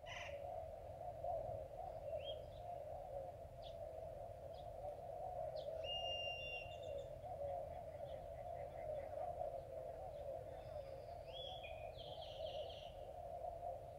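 Outdoor ambience: a steady hum holds throughout, while birds chirp now and then, with a cluster of calls about six seconds in and another near the end.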